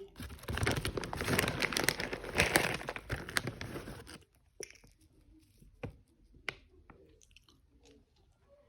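Crinkling, tearing noise for about four seconds, then a few scattered clicks and knocks.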